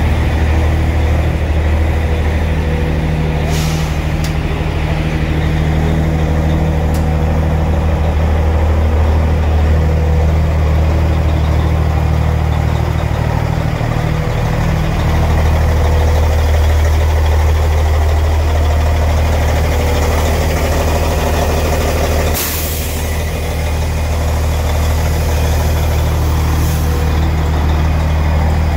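Peterbilt semi truck's Detroit diesel engine idling steadily, with two short hisses of air, one a few seconds in and another about three quarters of the way through.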